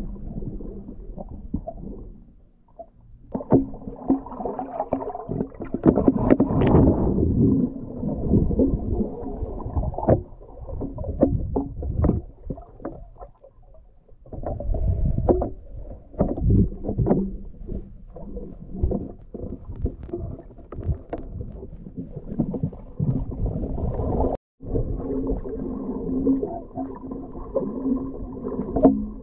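Muffled underwater sound picked up by a GoPro's microphone inside its housing while freediving: water movement with many short knocks and bumps, and a low steady hum underneath.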